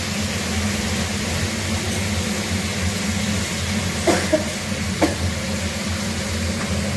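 Ridge gourd pieces frying in hot oil in a metal kadai: a steady sizzling hiss over a low hum. A metal spatula knocks against the pan a few times about four and five seconds in.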